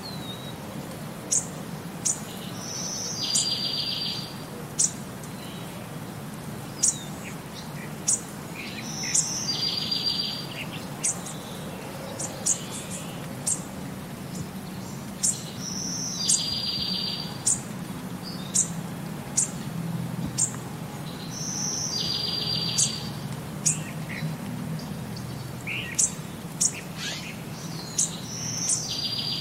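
Birdsong: many short, high chirps, with a buzzy trill that comes back at even spacing about every six and a half seconds, over a faint low hum.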